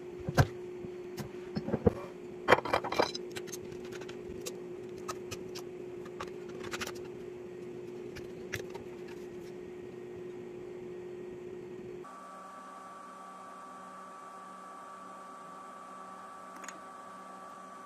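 A glass lid is set onto a glass drink dispenser with a few sharp clinks and knocks in the first three seconds, then more handling clicks as the cap comes off a plastic hand soap refill jug. A steady hum runs underneath and changes abruptly about twelve seconds in.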